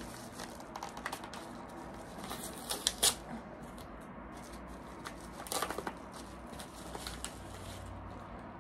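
A small package being opened by hand: its packaging rustling and crinkling in short spells, with sharper crackles about three seconds in and again past five seconds.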